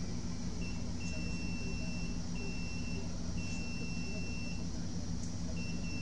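Multimeter continuity beeper giving a string of steady high-pitched beeps, most about a second long, as the probes touch capacitors on an iPad logic board. The beep signals a very low reading, near zero across the capacitor. A steady low hum runs underneath.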